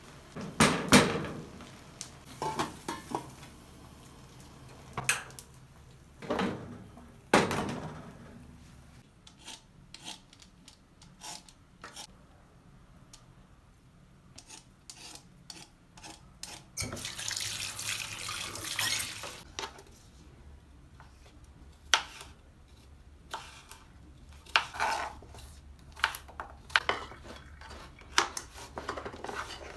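A wooden spoon scraping and knocking inside an aluminium pot as rice is stirred. Then a tap runs briefly into a sink about halfway through, and near the end come scattered clicks and knocks on a chopping board.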